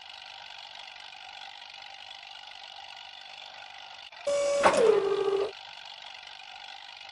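A machine running with a steady, thin whir. Just past the middle, a louder whine falls in pitch and then stops, lasting about a second.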